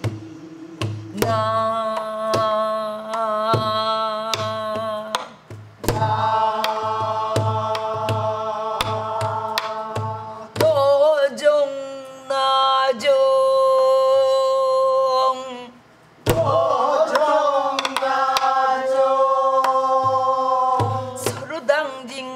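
A woman singing gueum, Korean wordless vocal melody on syllables, in long held notes with a wavering vibrato. She accompanies herself with deep strokes on a buk barrel drum, busy through the first half and sparse later.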